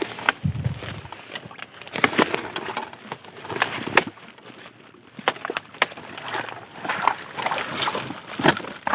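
Irregular knocks, clicks and rustling from a fish trap (bubu) being handled and lifted out of the river.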